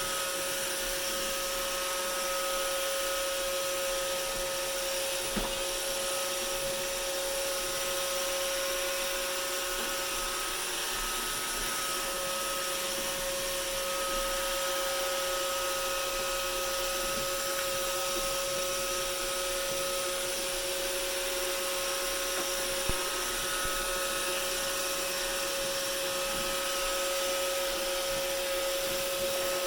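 Roomba robot vacuum running steadily on a tabletop, its motor giving a constant whirring hum with a steady whine, and two faint knocks about five seconds in and near the end.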